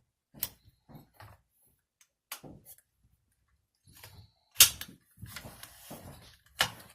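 Sharp metallic clicks and knocks of an AR-15's takedown and pivot pins being pushed out and the rifle being worked apart by hand, four distinct clicks with the loudest about two-thirds of the way through, and softer handling noise between.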